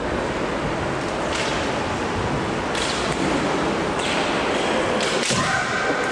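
Steady hubbub of a large sports hall, broken about four times by sharp cracks a second or so apart, typical of bamboo shinai striking kendo armour in bouts on other courts.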